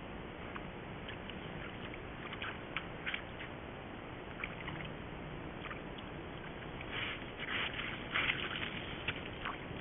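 Sambar stag moving in a muddy wallow: short wet sloshes and squelches of mud and water, a few around a quarter of the way in and a denser run in the second half, over the steady hiss of a trail camera's microphone.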